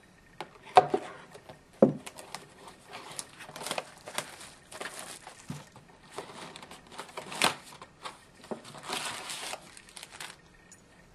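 A hobby box of hockey trading cards being unwrapped and opened and its foil packs pulled out: crinkling and tearing of wrapping with sharp clicks and taps of cardboard, in short bursts of rustling that stop shortly before the end.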